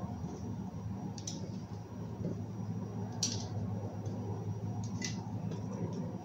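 Squares of soft dough being picked off a floured wooden counter and set on an air-fryer tray: a few brief, soft scrapes about every two seconds, over a steady low hum.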